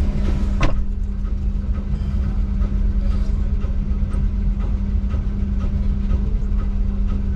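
Vehicle engine idling: a steady low rumble with a constant hum, heard from inside a car waiting in slow traffic. A single sharp click sounds about half a second in.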